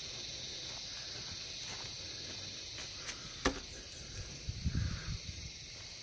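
Steady high-pitched drone of insects in the surrounding bush. A single sharp click comes about three and a half seconds in, and a few low rumbles of the phone being handled follow about a second later.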